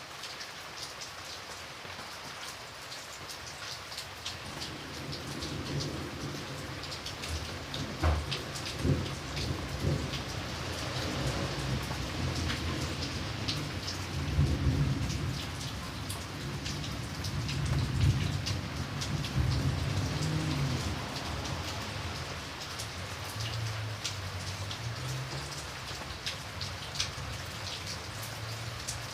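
Steady rain falling, with the ticks of single drops landing close by. A long, low rumble of thunder builds a few seconds in, swells in the middle and fades out near the end.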